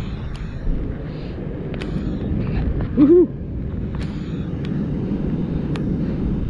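Steady low rush of water pouring through a spillway, with a few light clicks of handling. About three seconds in comes one short rising-and-falling voice-like call.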